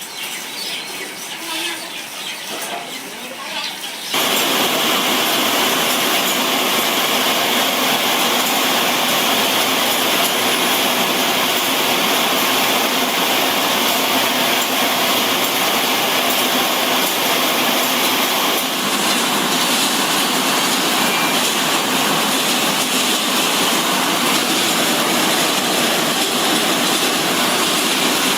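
Steady, loud machinery noise that cuts in abruptly about four seconds in, after quieter, uneven sounds.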